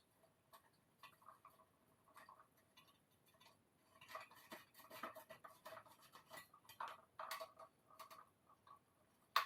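Faint metallic clinks, ticks and short scrapes of hand tools on small gas fittings as the patio heater's thermocouples are being undone, busiest in the middle, with one sharp click near the end.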